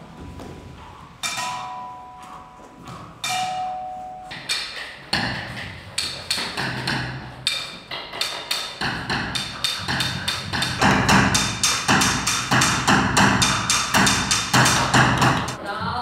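Live percussion: two ringing, pitched strikes in the first few seconds, then a run of sharp knocks that speeds up and grows louder, reaching many knocks a second in the second half.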